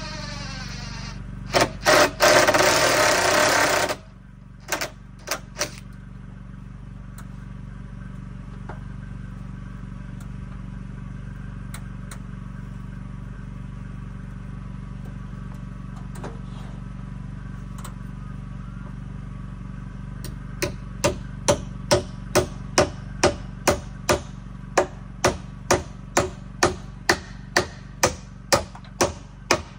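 A cordless DeWalt drill driving a screw into a timber frame for about two seconds, followed by a few light knocks. Later, a hammer striking the wooden frame in a steady run of blows, about two a second.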